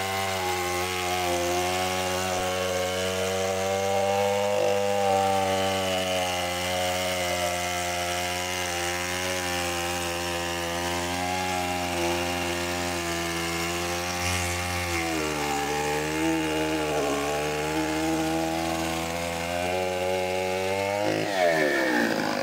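Large petrol chainsaw running at high speed while its bar saws through a thick log, the engine note sagging and wavering under the load for a while. Near the end the engine speed falls away quickly as the cut finishes and the throttle is released.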